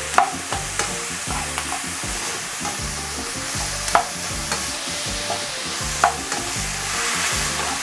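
Beef, peppers, onions and mushrooms sizzling in a hot nonstick wok on high heat as they are tossed and stirred with a slotted plastic spatula. Scrapes and knocks of the spatula on the pan come now and then, the sharpest about 4 and 6 seconds in.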